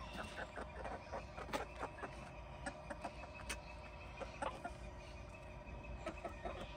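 Backyard hens clucking quietly: a string of short, scattered clucks.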